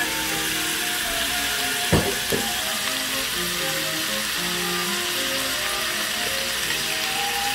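Minced pork sizzling in a hot enamelled pan, an even hiss over background music of held melodic notes. Two sharp knocks sound about two seconds in.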